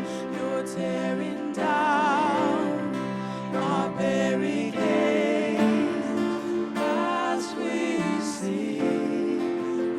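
Christian worship music with singing over a band, sustained notes held with vibrato.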